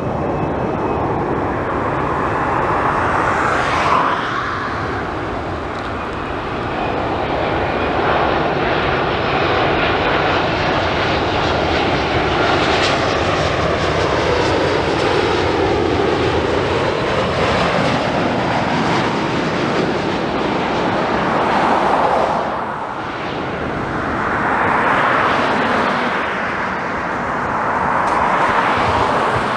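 Boeing 787-9 airliner's two GEnx-1B turbofan engines on landing approach: a loud, steady jet roar that swells and dips as the plane comes in low and passes by, with slow sweeping tones sliding through it in the middle.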